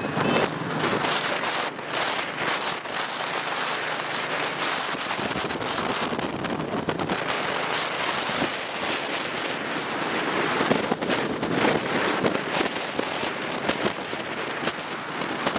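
Wind rushing over the microphone of a camera carried on a moving motorbike, with many small crackles from the buffeting.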